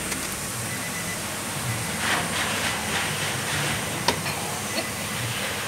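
Steady hiss with light rustling and one sharp click about four seconds in, from hands working the accelerator pedal sensor's wiring connector under the dashboard.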